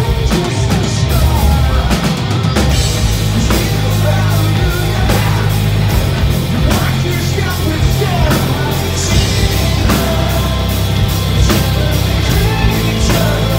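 Rock band playing loud and live. Drums, distorted electric guitar and bass guitar play together without a break.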